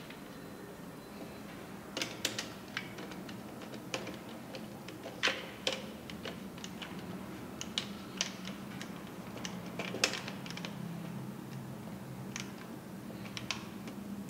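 Irregular sharp clicks and taps of a screwdriver and plastic as wires are fixed into the terminal screws of a two-pole isolator in a distribution board, about a dozen spread through, the loudest about ten seconds in. A faint steady low hum lies underneath.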